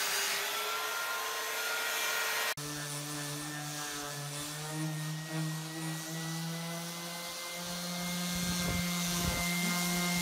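Belt sander running on oak with a steady motor whine. About 2.5 s in, the sound cuts abruptly to a random orbital sander, whose motor hums lower and steadier as it works across the oak surface.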